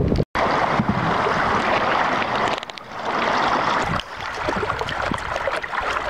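River water rushing and splashing past a wooden boat's hull, a steady noisy wash that eases off briefly twice.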